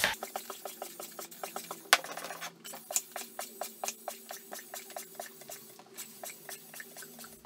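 Air pump inflating a vinyl inflatable toy through a hose: a rapid, regular pulsing, about five pulses a second, over a steady low hum, stopping shortly before the end. A single sharp click about two seconds in.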